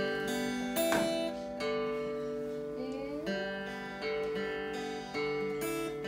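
Acoustic guitar being played, chords struck about once a second and left to ring, with a brief upward slide in pitch midway.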